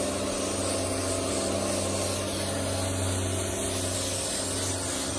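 Pressure washer running: a steady pump-motor hum under the hiss of its water jet spraying across small stone paving setts. It is rinsing a cleaning product off the stones.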